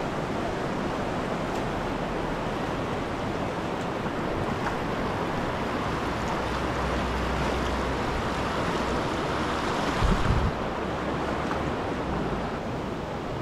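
Creek water rushing over rocks in a shallow riffle: a steady, even rush. About ten seconds in comes a brief low thump on the microphone.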